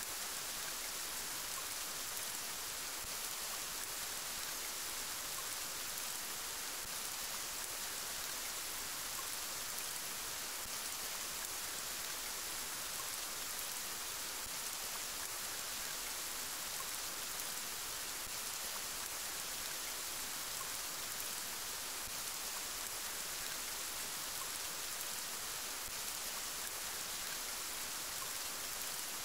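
Steady rain falling, an even hiss that holds the same strength throughout.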